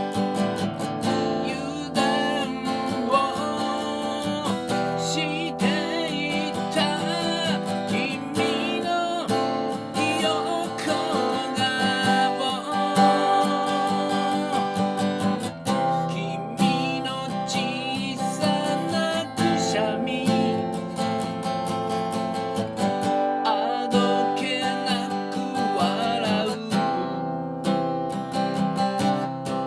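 Acoustic guitar strummed and picked continuously, playing a song.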